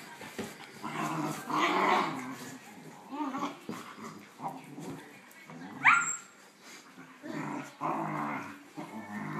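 Small dogs play-growling as they wrestle, in repeated low growls, with one short rising yelp about six seconds in.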